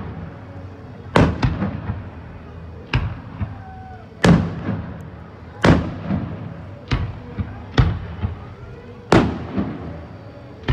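Aerial fireworks shells bursting one after another, a sharp bang about every second, each trailing off in an echoing rumble.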